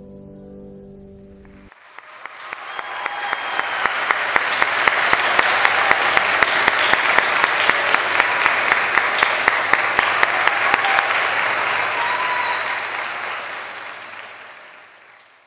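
The last held notes of the dance music cut off just under two seconds in, and audience applause breaks out, swells to loud steady clapping with sharp close claps standing out, and fades away near the end.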